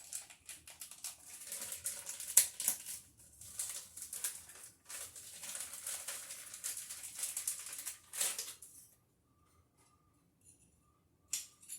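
Wiremold surface-raceway pieces being handled: a run of light rattling and clicking with a sharper click about two seconds in, then quiet, and one more click near the end.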